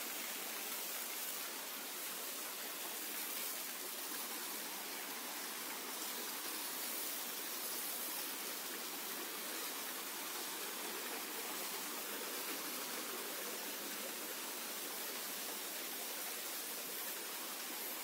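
Water of the Leghvtaghevi stream rushing over rocks: a steady, even rush of water.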